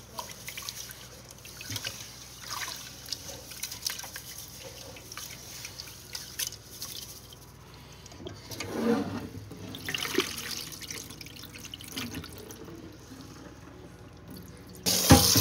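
Rice being washed by hand in water in a stainless steel pot: scattered swishes and small splashes as the grains are rubbed. Near the end, a sudden loud gush of water as the cloudy starchy rinse water is poured off into the sink.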